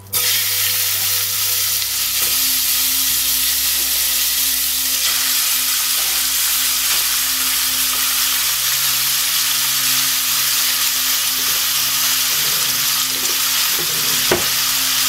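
Cubed rump steak sizzling in hot oil in a stainless steel saucepan. The sizzle starts suddenly as the meat goes into the pan and carries on steadily while it browns. There is a single knock near the end.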